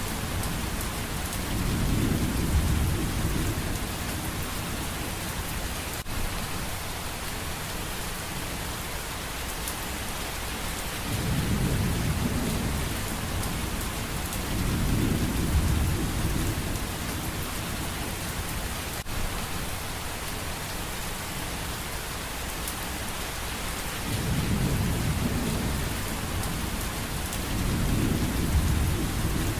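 Steady rain falling, with low rolls of thunder swelling and fading about five times, each lasting a couple of seconds.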